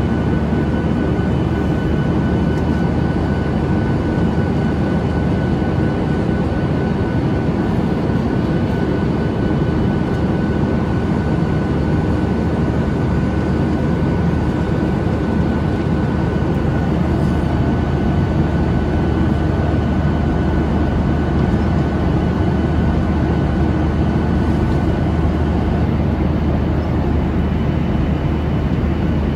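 Boeing 737-800's CFM56 jet engines running steadily, heard from inside the passenger cabin as a constant low rumble with a faint high whine on top.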